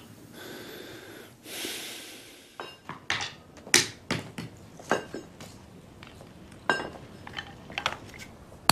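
A hatchet splitting kindling wood: a string of sharp, irregularly spaced knocks, about one every half second, the loudest a little under four seconds in. A brief rushing hiss comes before them, near the start.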